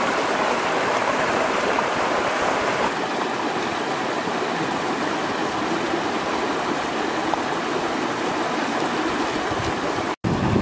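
Shallow rocky stream flowing over stones and small rapids: a steady rush of running water. The sound shifts slightly about three seconds in and cuts out for an instant near the end.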